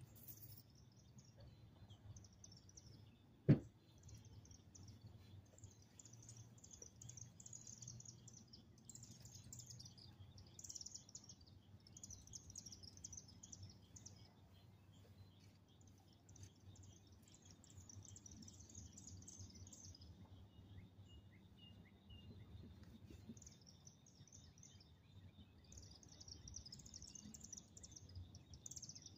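Faint birdsong at dusk: small birds repeating quick high chirping phrases over and over, over a steady thin high hum. One sharp click about three and a half seconds in stands out as the loudest sound.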